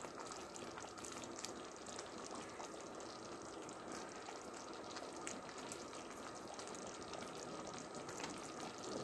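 Thick curry gravy simmering in a steel kadai, a faint steady bubbling hiss with scattered small pops.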